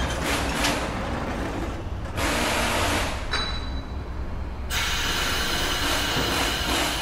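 Heavy truck's diesel engine running at a steady low idle, with bursts of hiss and mechanical noise that start and stop abruptly.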